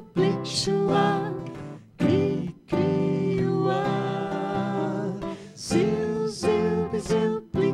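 Live acoustic guitar music: the instrumental introduction of a children's song, with held melodic notes and short bright accents over the guitar.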